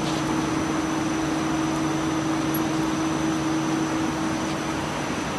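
Picket-fence making machine running: a steady electric motor hum over a constant even hiss, with no starts, stops or changes.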